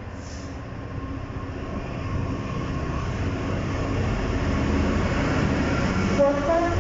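GB Railfreight Class 66 diesel locomotive, its two-stroke EMD V12 engine running as it approaches and passes close by, hauling a container freight train. The engine rumble grows steadily louder as it nears.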